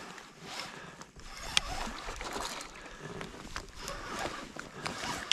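Water splashing and lapping around a small boat as a hooked smallmouth bass thrashes at the surface, with scattered small clicks and knocks, one sharper than the rest about a second and a half in.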